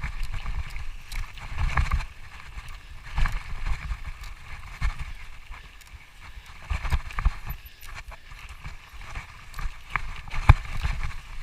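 Irregular thumps and rustling of a hiker scrambling over a rocky trail: footfalls and gear or camera handling, with one sharp knock about ten and a half seconds in.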